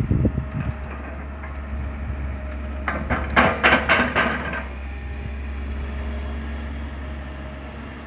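Diesel engine of a Komatsu PC200 hydraulic excavator running steadily. About three seconds in, a second and a half of clattering as a bucketful of earth and stones drops into the steel bed of a dump truck.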